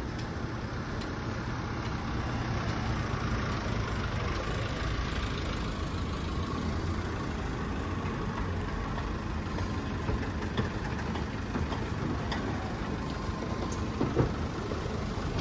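A vehicle engine runs with a steady low rumble, with a few faint knocks late on.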